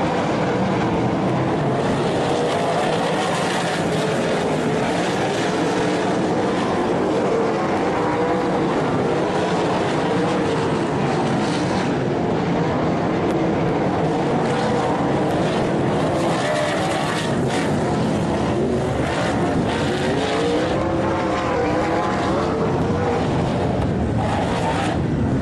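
360 sprint car engines running hard at racing speed, a loud steady engine noise whose pitch keeps rising and falling.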